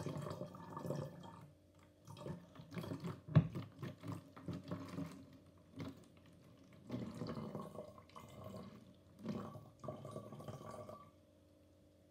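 Green liquid poured from a plastic bottle into a clear plastic container, splashing in uneven spurts with short pauses, and one sharp knock a little over three seconds in. The pouring stops near the end.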